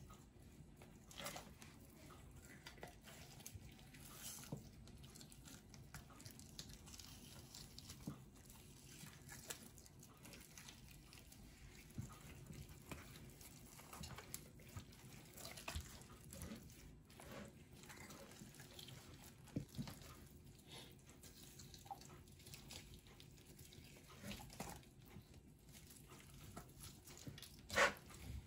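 Faint, irregular small clicks and peeling noises of raw chicken skin being pulled off the meat by hand on a plastic cutting board, with one sharp knock near the end.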